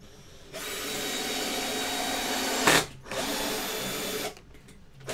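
Small cheap cordless drill-driver running a self-tapping screw up through the frame into the canvas stretcher: a run of about two seconds ending in a short, louder clatter, then a second run of about a second. This is the drive-in and back-off technique that makes the screw pull the canvas down into the frame.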